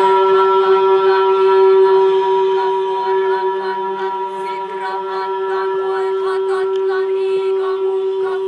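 Droning music: one steady held note with chant-like voices wavering over it.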